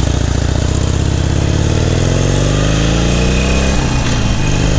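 Motorcycle engine accelerating under load, its pitch climbing steadily for a few seconds, then dropping about four seconds in and running on at a lower, steady pitch.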